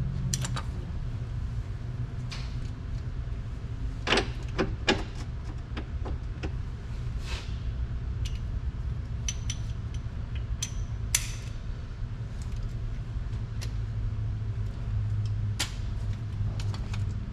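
Metal hand tools clinking and tapping a few times against the car's rear bolts as they are checked for tightness, with a cluster of clinks about four seconds in. A steady low hum runs underneath.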